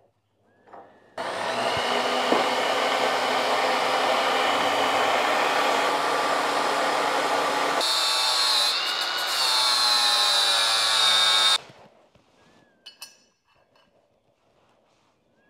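Bauer 20V cordless angle grinder cutting into a steel tube section, running steadily for about ten seconds. About two-thirds of the way through, the sound changes abruptly to a higher, thinner whine, and then it cuts off.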